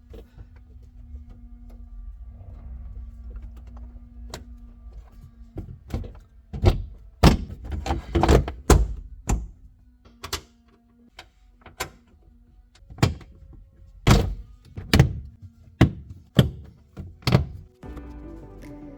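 A series of about a dozen sharp knocks and thunks from work on the Subaru BRZ's stripped interior, over a low steady hum. They come in two bunches, loudest in the middle. Music comes in near the end.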